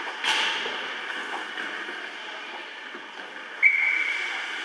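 A referee's whistle blows one steady high note for about a second near the end, the signal that stops play in an ice hockey game. Just after the start there is a single sharp clack over steady rink noise.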